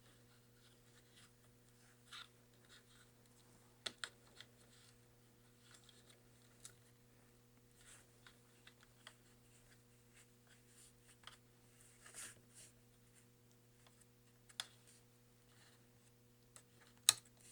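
Faint, scattered small clicks and scratches of hands and tools handling laptop parts, with one sharper click near the end, over a steady low electrical hum.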